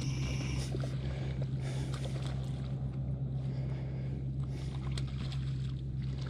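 A steady low hum holds at one pitch throughout, over a faint rough background with a few scattered light ticks.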